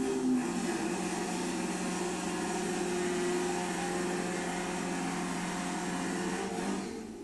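Drag-race Volkswagen Beetle's engine held at steady high revs during a tyre-smoking burnout, with a constant pitch and a rushing tyre noise. The engine note eases off near the end.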